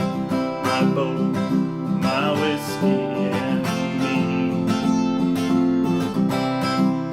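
Acoustic guitar strummed in a steady rhythm: an instrumental passage of a song.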